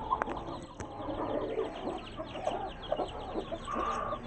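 Seven-day-old chicks peeping in many quick, high chirps while their mother hen clucks low among them. Two sharp clicks come in the first second.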